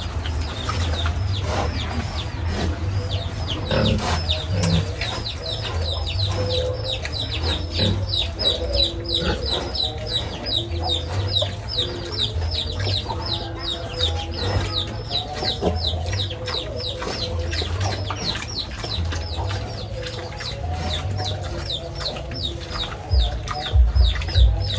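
A brood of chicks peeping non-stop: many short, high, falling cheeps, several a second, over a low uneven rumble.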